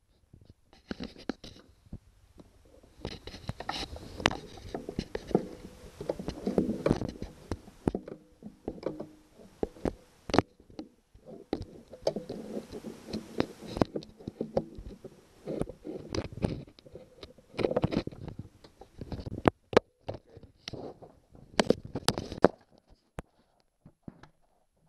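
Irregular metal clicks, taps and scraping from hand work on an outboard motor's linkage and fasteners, with patches of rubbing noise close to the microphone.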